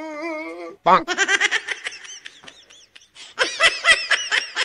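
A drawn-out wavering voice, then high-pitched laughter in quick bursts starting about a second in, fading briefly and coming back louder near the end.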